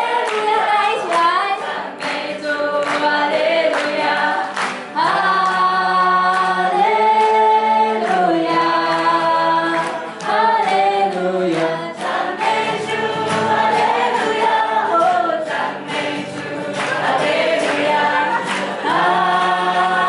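A large group of voices singing a Christian praise song together, with long held notes, and hands clapping along.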